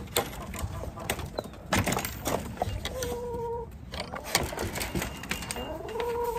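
Metal latch and wooden lattice chicken-coop gate clicking and knocking as the gate is unlatched and pulled open, with hens giving short calls, one about three seconds in and another near the end.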